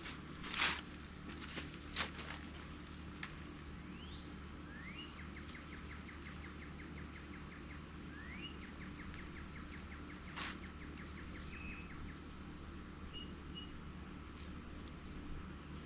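Songbirds singing outdoors: twice a rising note runs into a rapid dry trill, with short high whistled notes between. A couple of short knocks or scrapes sound in the first two seconds.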